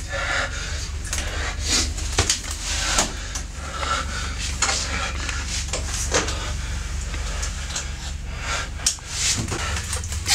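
Steady low hum under irregular rustling and breathy noises in a small room.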